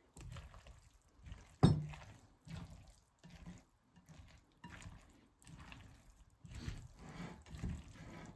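Pasta salad being stirred with a spatula in a glass bowl: soft, wet squelching of rotini coated in mayonnaise dressing, in irregular strokes. One sharper knock of the spatula against the bowl about a second and a half in is the loudest sound.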